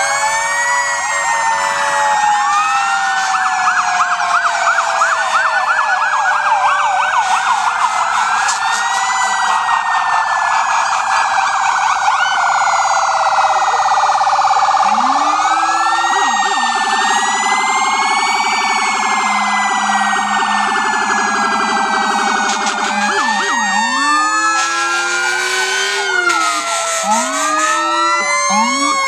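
Several emergency-vehicle sirens sounding together, overlapping slow rising-and-falling wails with bursts of fast yelping. In the second half a lower steady tone joins them for several seconds.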